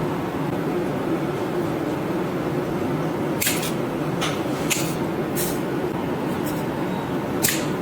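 A steady whirring hum, with about five sharp clicks or snips at irregular intervals in the second half.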